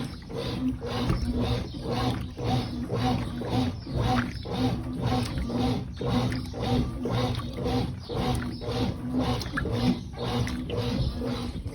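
Brastemp top-loading washing machine in its wash agitation: a steady motor hum with rhythmic surges about twice a second as the agitator churns the water and clothes.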